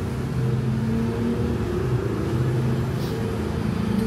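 Motor vehicle engines running, a steady low hum whose pitch shifts every second or so.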